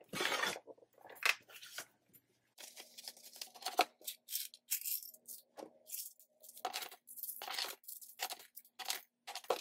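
Paper money rustling and coins clinking as they are handled over and into a clear acrylic cash box: a string of short, irregular clicks and rustles.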